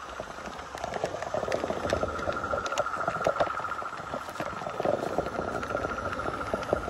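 G-scale model train running along garden track, heard from aboard: irregular clicks and rattling of the wheels and cars on the rails, and leaves crackling as they brush past, over a steady high hum.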